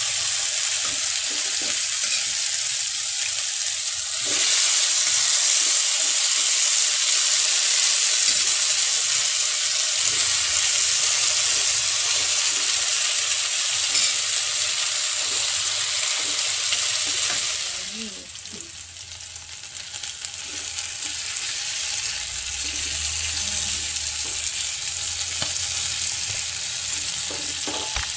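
Marinated chicken pieces sizzling in a hinged double-sided grill pan. The sizzle gets louder about four seconds in, then drops off sharply about eighteen seconds in and carries on more quietly.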